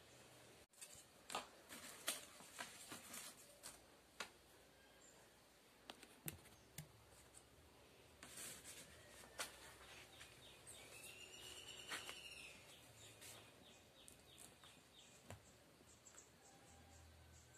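Near silence with scattered faint clicks and taps from paper pieces being handled on a tabletop. About eleven seconds in, a bird gives a short chirp that rises and falls, followed by a run of quick faint ticks.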